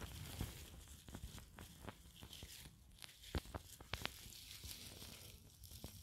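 Faint rustling and crackling of grass and leaf litter as a hand works through the forest floor picking mushrooms, with scattered small snaps and ticks, two slightly sharper ones a little past the middle.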